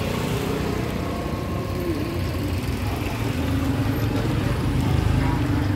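Steady low rumble of a running vehicle engine, growing a little louder about five seconds in, with faint voices behind it.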